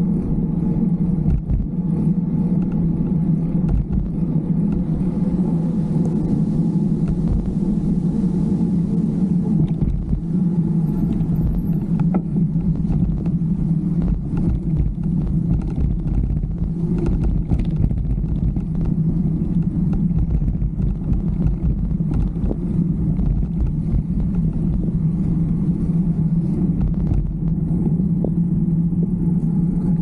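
Riding noise from a mountain bike in motion: steady wind rumble on the camera microphone and the tyres running over pavement, with scattered small clicks and rattles over bumps.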